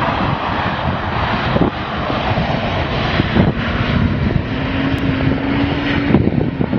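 Rear-wheel-drive BMW E46 sedan drifting on ice, its engine revving hard with the rear wheels spinning. About halfway through, the engine note settles into a steady high tone that creeps slightly up in pitch for a couple of seconds.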